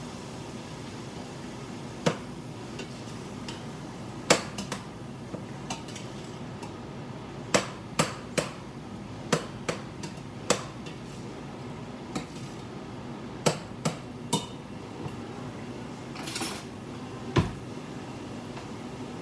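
A metal spoon and tongs knock and clink against stainless steel cooking pots as ground beef is stirred: a dozen or more sharp, irregular knocks, with a brief scrape near the end, over a steady low hum.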